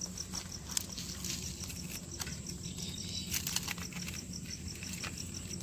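Dry, charred leaf wrapping crackling and crinkling as it is peeled by hand off a leaf-roasted chicken parcel, with a few sharp crackles. Crickets chirp steadily in an even pulsing rhythm throughout.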